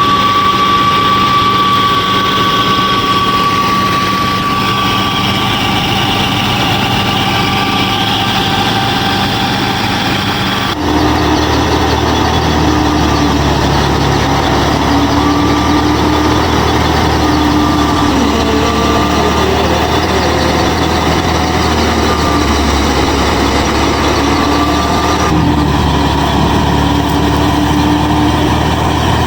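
Small motors of a DIY miniature combine harvester and thresher running steadily with a whine that wavers slightly in pitch. The sound changes abruptly twice.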